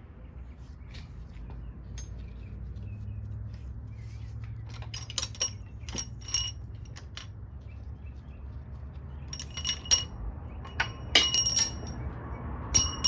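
Metal hand tools and engine parts clinking and clicking during a small-block Chevy teardown: scattered sharp, ringing metallic clinks in small bunches, with a faint steady low hum beneath.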